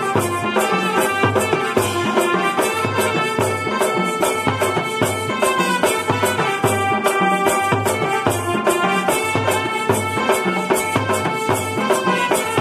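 Live band-party music: a large bass drum and a drum kit with pink toms, snare and cymbal keep a steady beat under a keyboard melody.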